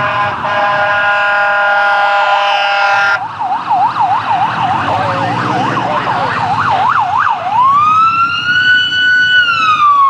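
A fire rescue truck's locomotive air horn sounds a steady chord of several notes over its siren for about three seconds, then cuts off sharply. The siren carries on in a fast yelp, sweeping up and down about twice a second. Then it switches to a wail that rises, holds high, and starts to fall near the end.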